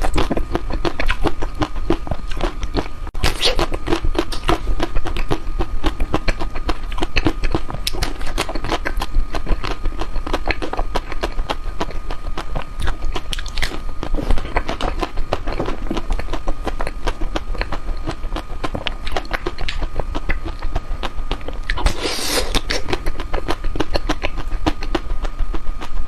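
Close-miked eating of chocolate ice cream: irregular biting, chewing and crunching with many small wet clicks, louder for a moment near the end.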